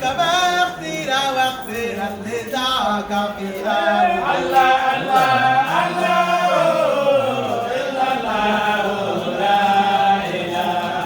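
Voices singing an Islamic devotional chant together in long held notes that rise and fall.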